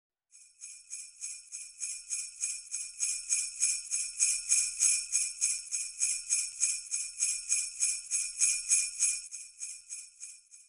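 Sleigh bells shaken in a steady rhythm, about three shakes a second, swelling toward the middle and fading out near the end.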